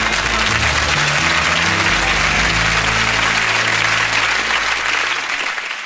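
Studio audience applauding over music with steady low notes, the applause easing off near the end.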